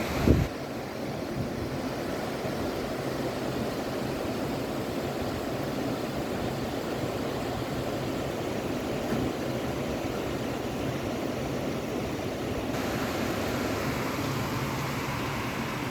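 Storm wind and rain as a steady rushing noise, with one brief thump just after the start.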